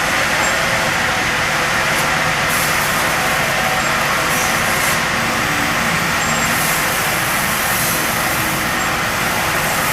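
Heavy machinery running steadily and loudly, with brief hissy surges now and then.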